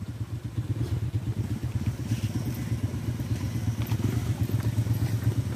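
Motorcycle engine running at low revs, a steady low putter as the bike creeps along a muddy trail.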